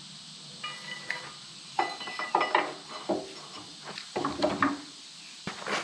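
Steel hand tools clinking and clanking against a Bobcat lift cylinder and its steel bracket as a wrench and bar are fitted and worked, about a dozen short metallic knocks, two of them ringing briefly early on and near the second mark.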